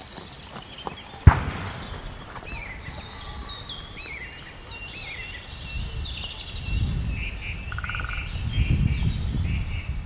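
Mixed woodland birdsong: several birds chirping and singing short high phrases, one with a quick trill near the end. A single sharp knock about a second in, and a low rumble through the second half.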